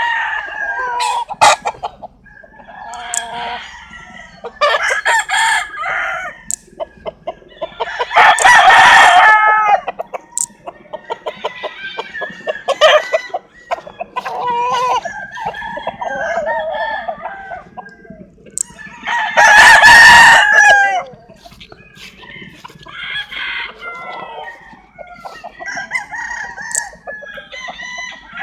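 Roosters crowing, one after another, among clucking chickens. The two loudest, longest crows come about a third of the way in and about two-thirds in, with shorter calls and clucks between.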